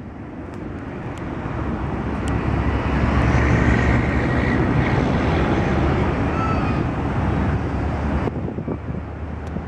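Boeing 747-400 freighter's four jet engines on final approach: a low rumble that grows louder over the first three seconds and then holds, with a faint high whine.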